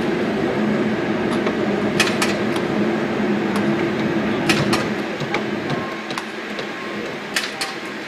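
Jugs football passing machine running, its spinning wheels making a steady mechanical hum that grows a little quieter after about five seconds. Three sharp smacks of footballs come about two and a half seconds apart.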